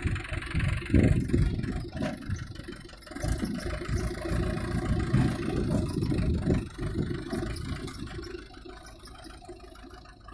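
Mahindra tractor's diesel engine running steadily, its rumble rising and falling in level and fading after about seven seconds.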